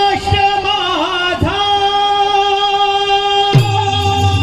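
A high-pitched male voice holding one long note in a Marathi bhajan, with a few brief dips and bends in pitch. A low accompaniment comes in near the end.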